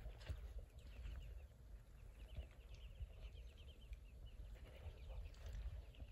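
Ducklings peeping faintly, with a quick run of short chirps about two to three seconds in, over a low rumble.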